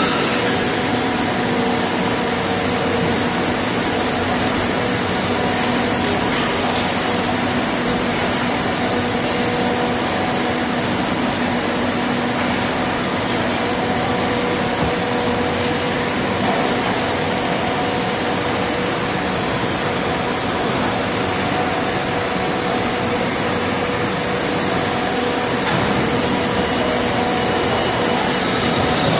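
Steady industrial drone of meat-works boning-room machinery and ventilation: a continuous rushing noise with a hum of several held tones underneath, unchanging throughout.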